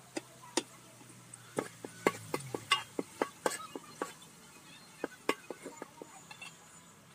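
Metal ladle clinking and scraping against an aluminium cooking pot as curry is stirred: a run of short, sharp, irregular clinks, thickest in the first half and again about five seconds in.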